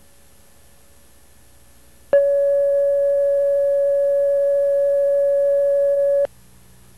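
Steady mid-pitched line-up tone that goes with a TV station's commercial-tape slate. It switches on abruptly about two seconds in, holds at one level for about four seconds, and cuts off sharply, over faint tape hiss.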